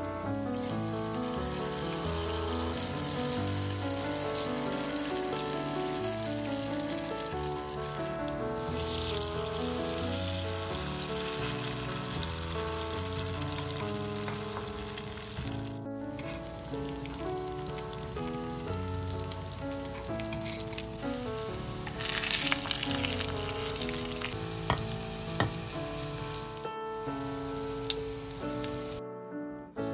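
Grated potato, carrot and onion pancakes sizzling as they fry in oil in a pan. The sizzling swells louder twice, about a third of the way in and again about three-quarters through, with a few light clicks near the end. Background music with a melody plays under it.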